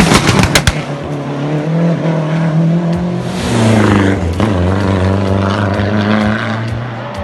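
Rally car engine running loud, with a quick run of sharp pops in the first second and a surge of revs about three and a half seconds in.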